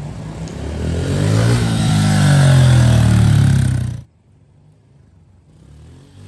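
Honda 110cc dirt bike's small four-stroke single-cylinder engine revving up, its pitch rising and then holding high, before cutting off abruptly about four seconds in.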